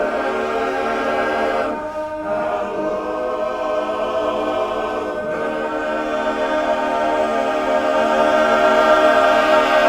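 Men's barbershop chorus singing a cappella in close harmony, holding long sustained chords that change about two and five seconds in and swell louder toward the end.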